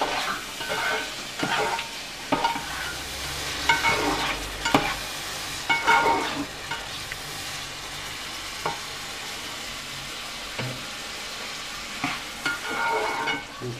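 Diced tomatoes and garlic sizzling in a frying pan while a spatula stirs them, with irregular clacks and scrapes of the spatula against the pan, busier in the first half.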